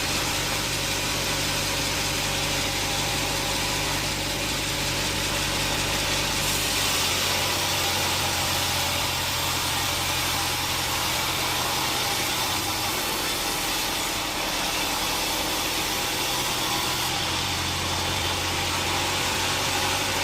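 Sawmill machinery running steadily: an engine hum under a dense high hiss, with the low engine note dropping away about a third of the way in and shifting again twice later.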